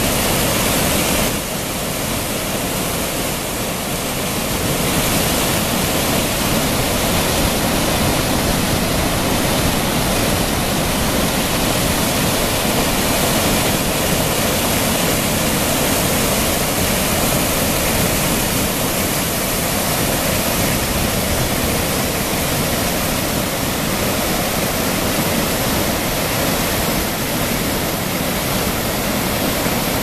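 Water pouring steadily over a low stone weir into a foaming pool: a loud, even rush of falling water.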